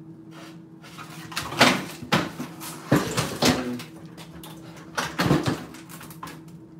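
Knocks and clatters of a gutted microwave oven's metal casing being handled and set down on a kitchen countertop, about five separate knocks, over a steady low hum.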